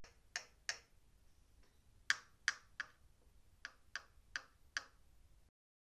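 Small diagonal-cutter pliers working a transistor's thin wire leads: about nine sharp, short metallic clicks in uneven groups of two, three and four.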